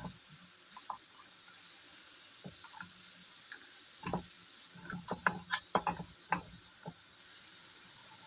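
Small clicks, taps and scrapes of a hand-wound copper toroid coil and its stiff wire leads being handled and bent against a wooden board, with a quick run of sharper ticks about five to six and a half seconds in.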